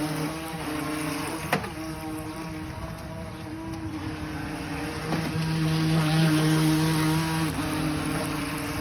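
Battery-powered toy remote-control speedboat's small electric motor running with a steady whine, louder for a few seconds from about five seconds in. A sharp click about a second and a half in.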